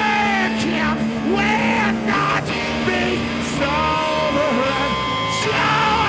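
Live rock band playing a song, electric guitar and drums with a singer's held, sliding vocal lines over them.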